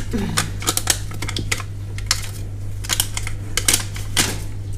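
Irregular sharp clicks and crinkles from a pantry-moth glue trap and a plastic bag being handled as the trap is pressed onto the inside wall of a kitchen cabinet, over a steady low hum.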